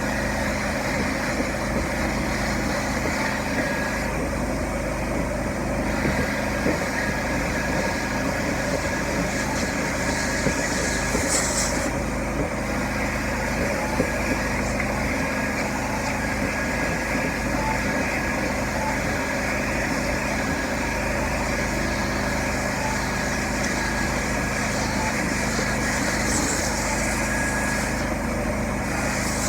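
Hot water carpet extraction machine running steadily, its motor and vacuum going without a break, as a floor mat is rinsed and extracted.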